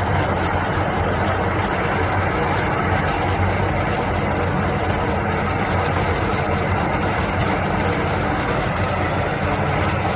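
QST3000D stone-cutting chain saw running steadily with its chain sunk in a stone block, making a continuous, even machine noise with a low hum under it.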